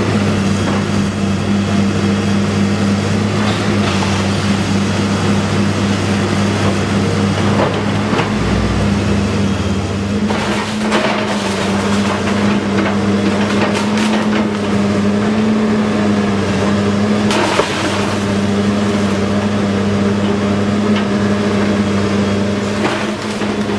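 Heavy demolition machine's engine running steadily under load, with occasional cracks and crashes of the house being broken apart.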